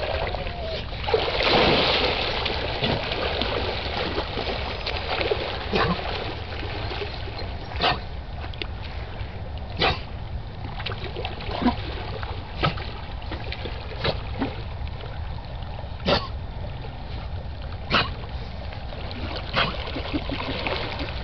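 Dogs swimming and splashing in water: a big splash about a second and a half in, then short splashes every second or two over a steady low rumble.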